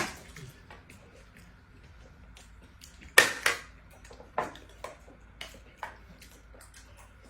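Spoons clinking and scraping against dishes in irregular knocks during fast eating, the loudest a short clatter about three seconds in.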